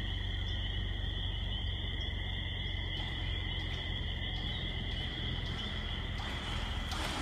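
A steady evening chorus of calling frogs, heard as two unbroken high-pitched bands of trilling, over a low steady rumble.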